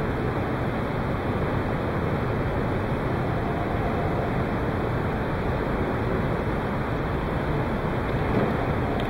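Steady rushing room noise with a low rumble, even in level throughout; no ball strikes are heard.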